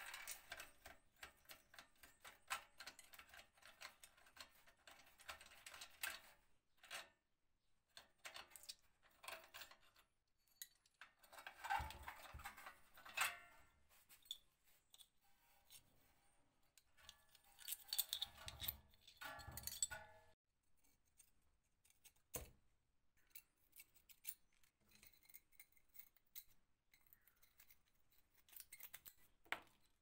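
Quiet clicks, scrapes and light rattles of small metal and ceramic parts being handled and pulled apart as a 1970s electric heater is disassembled, with one sharp click past the middle.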